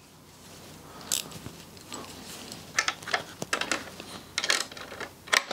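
13 mm spanners working a bolt on a motorcycle's headlight-guard mount: a run of small metallic clicks and ticks, sparse at first and coming thick and fast in the second half, as the bolt is done up loosely, not tightened.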